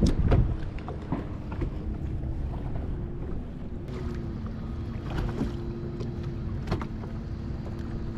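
Wind on the microphone and water slapping the hull of a bass boat, under the steady hum of the electric bow trolling motor, with a few light clicks from the rod and reel. A sharp knock comes right at the start.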